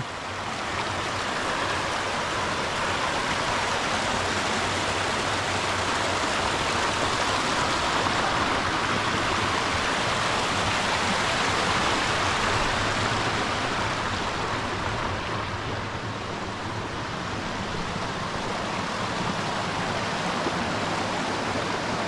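Rocky mountain stream rushing over boulders and small cascades: a steady rush of water that swells slightly around the middle.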